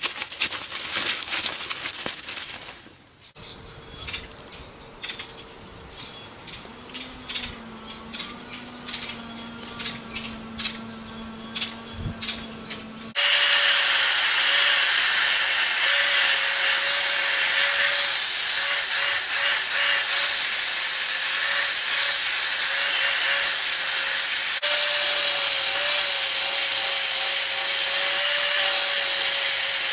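Paper towel rubbing over the hatchet head at first, then quieter handling. About 13 seconds in, a cordless drill with a wire wheel brush starts up and scrubs the steel hatchet head: a steady, loud hissing scrape with the drill motor's steady whine.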